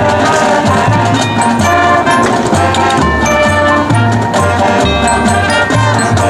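High school marching band playing full out on the field: brass chords over a moving bass line, with drum and percussion hits throughout.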